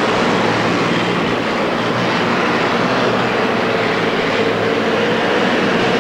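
Modified pulling tractor's engine running hard and steady under full load as it drags the weight-transfer sled. The commentators judge it not running well and short of power.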